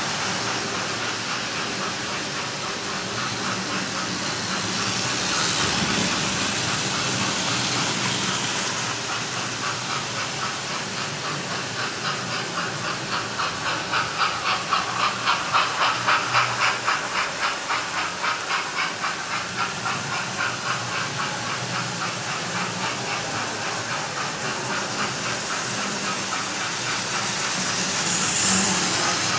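Model trains running on a layout: a steady hiss of motors and wheels on track, with rhythmic steam-engine chuffing from a sound-fitted model of GWR King class 6009 King Charles II, about two chuffs a second, growing louder toward the middle and then fading. Near the end a train passes close and the running noise swells.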